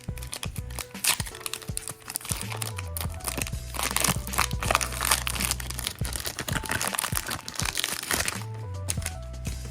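Crinkling and crackling of a foil booster-pack wrapper and trading cards being handled, over background music with a steady beat.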